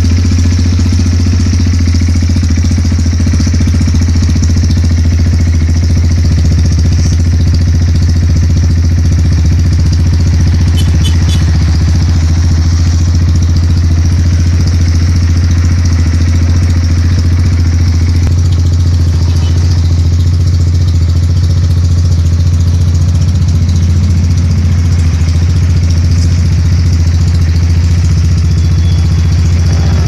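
Benelli Motobi 200's single-cylinder fuel-injected engine idling steadily.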